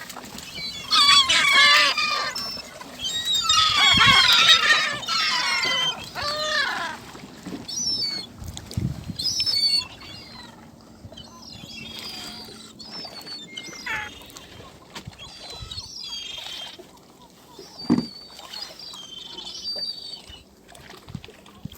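A flock of gulls calling, many overlapping cries, dense and loud for the first several seconds, then sparser and fainter. A few dull thumps come in between.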